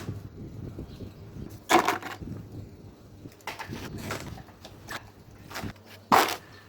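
Workshop handling noise: several sharp knocks and clicks over a low rumbling scrape, with one loud knock about two seconds in and another near the end.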